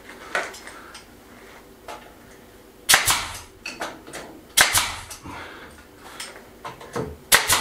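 Pneumatic nail gun firing into wood, three sharp shots a second or two apart with lighter clicks and knocks between, as a drawer runner is fixed inside a wooden cabinet frame.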